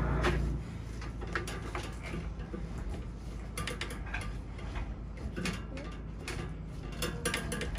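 Irregular clicks and rattles of a drain inspection camera's push cable being fed further into the pipe. A steady low hum cuts off about half a second in.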